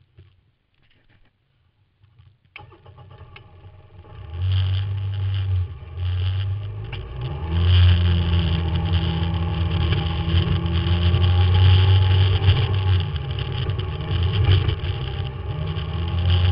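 Side-by-side UTV engine heard from inside the cab, driving a dirt trail. After a near-silent start it comes in about two and a half seconds in and grows loud, then runs on, its pitch rising and falling and dipping briefly a few times as the throttle eases off and comes back on.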